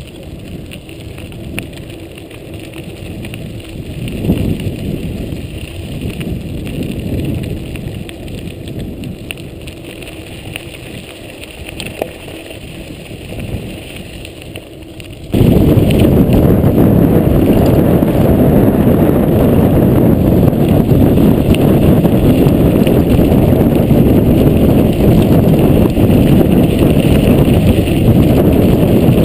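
Mountain bike rolling on a gravel track: tyres on loose stones, with a few clicks and rattles from the bike. About halfway through it changes abruptly to a much louder, steady rush of wind on the microphone and tyre noise at speed.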